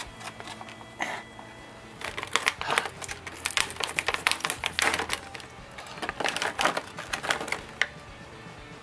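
A knife blade stabbing and cutting into a rigid clear plastic blister pack, making rapid clicking and crackling of plastic from about two seconds in.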